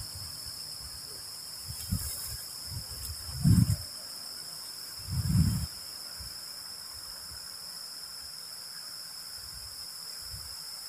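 Steady high chorus of night insects, broken by low wind rumbles buffeting the microphone about three and a half seconds in and again just after five seconds.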